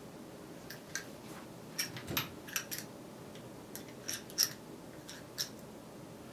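Foley gun-movement effect: a small handheld object clicked and rattled close to a microphone, giving a string of irregular sharp clicks that imitate a gun being handled.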